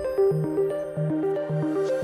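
Intro music: a quick, repeating pattern of short stepping notes over a bass line.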